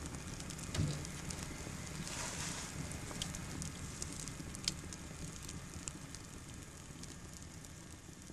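Steady crackling hiss with scattered small clicks, a dull thump about a second in and a short swell of hiss a little after two seconds.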